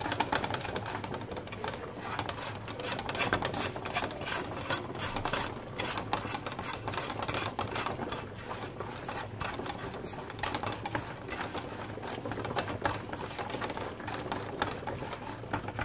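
Bamboo spatula scraping and stirring sugar crystals in a dry pan in quick, repeated strokes, as the sugar is melted down toward caramel.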